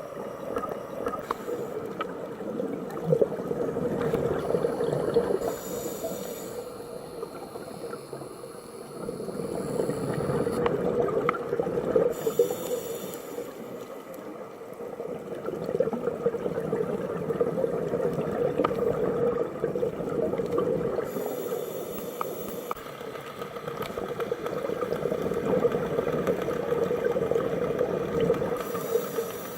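Scuba diver breathing through a regulator underwater: a short hiss on each inhale, followed by a longer gurgling rush of exhaled bubbles, repeating about every six to seven seconds.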